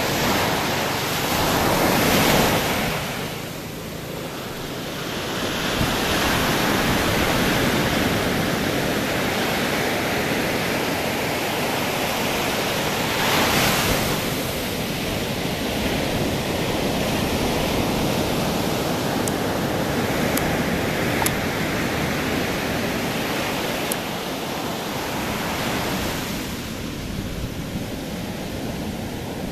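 Ocean surf washing onto a sandy beach: a continuous rushing that swells and eases every several seconds.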